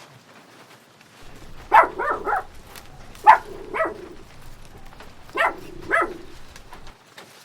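A dog barking: a quick run of three barks, then two pairs of barks.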